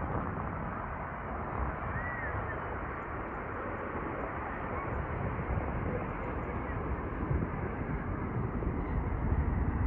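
Steady outdoor background noise: a low, uneven rumble and hiss, with a faint short rising-and-falling whistle about two seconds in.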